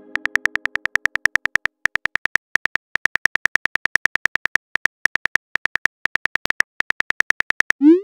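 Rapid synthetic keyboard clicks from a texting-story app as a message is typed out, about seven clicks a second with a few short pauses. A short rising whoosh sounds at the very end as the message is sent.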